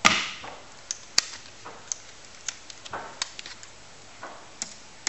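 A sharp clack as a laptop is handled and opened, then single key clicks spaced irregularly about every half second as someone types slowly on the laptop keyboard.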